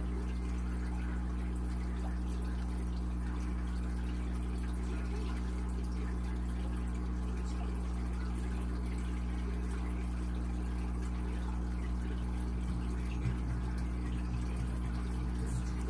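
A small motor humming steadily at a constant level, with a faint steady hiss over it.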